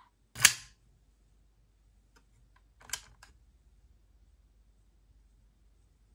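Plastic clicks from handling a Desire Driver toy belt and its buckles. One sharp click comes about half a second in, then a few faint ticks, then a double click about three seconds in.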